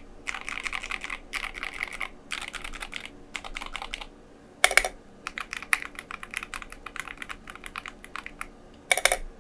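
Typing on a mechanical keyboard with Akko Starfish linear switches and Domikey SA keycaps: fast runs of keystrokes for about four seconds, then slower separate key presses. Twice, about halfway through and near the end, comes a louder, deeper clack.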